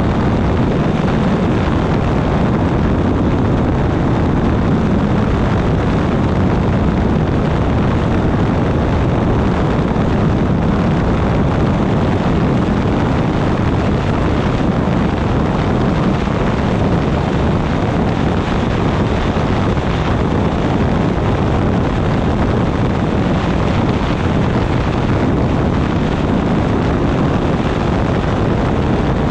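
Ultralight trike in cruising flight: a steady drone from its rear-mounted pusher engine and propeller, mixed with heavy wind rush on a wing-mounted microphone, unchanging throughout.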